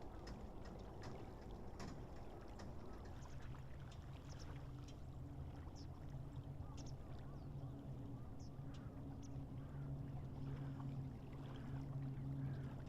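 Faint outdoor ambience: scattered short bird calls and high ticks, with a steady low engine-like hum coming in a few seconds in and holding.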